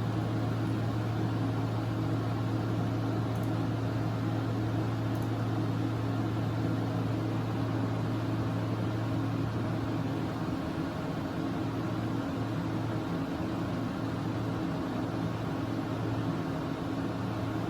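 CT scanner running during a chest scan: a steady low mechanical hum with an even hiss of air on top, easing slightly about ten seconds in.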